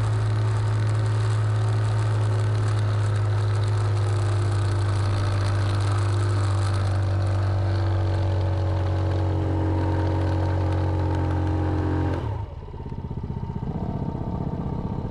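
Yamaha Raptor 90 quad's small four-stroke engine running hard at steady throttle while riding, its pitch sagging a little. About twelve seconds in the throttle is shut and the engine drops to idle.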